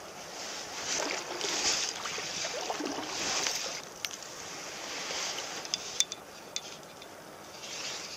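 Small river's current flowing, an even rushing noise that swells and fades, with a few faint clicks about four and six seconds in.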